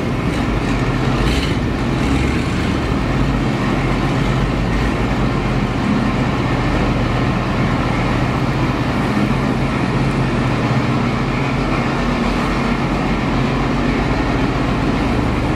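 A Ford F600 truck and a John Deere 4430 tractor idling steadily together, both just cold-started; the tractor was started on ether and is running rich.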